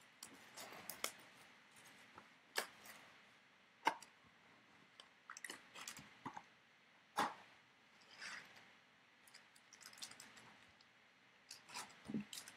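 Hands opening a 2017 Elite trading-card box: crinkling plastic wrap and light cardboard clicks as the box is opened and the foil packs are pulled out, with a few sharper snaps.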